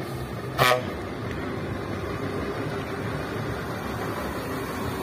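Scania truck's horn gives one short blast about half a second in, then the truck's engine runs steadily as it moves slowly past.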